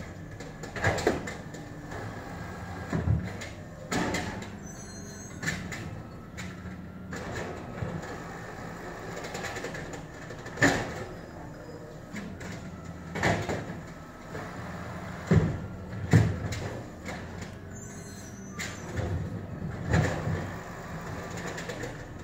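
Automated side-loader garbage truck working its curbside route: the diesel engine runs steadily while the side arm lifts and dumps trash carts. About a dozen loud clanks and bangs come at irregular intervals as carts knock against the hopper and the arm.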